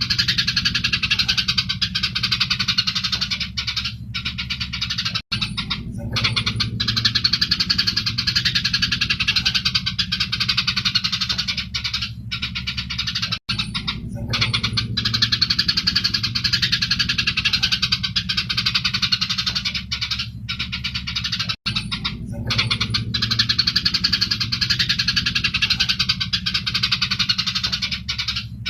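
Eurasian tree sparrows chirping and chattering densely and without pause, the squabbling calls of sparrows fighting, over a steady low hum. The same stretch of recording repeats about every eight seconds, with a brief dropout at each join.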